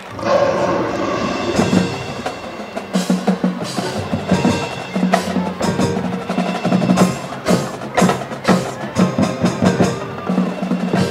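High school marching band playing its halftime show: a loud held chord from the band at the start, then rhythmic percussion hits from the drums and front ensemble.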